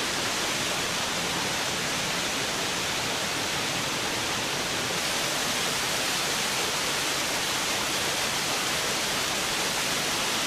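A steady, even rushing hiss with no rhythm or breaks, like running water.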